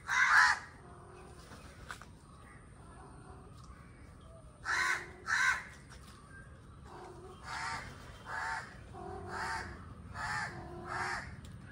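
A crow cawing: about eight short, harsh caws, several in pairs, the loudest right at the start.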